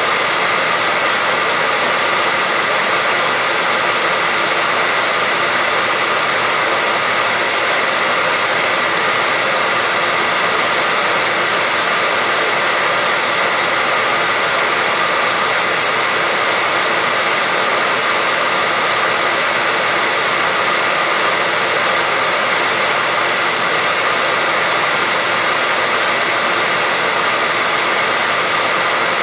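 Hair dryer running continuously, a steady, unchanging whoosh of blown air with a faint steady whine in it.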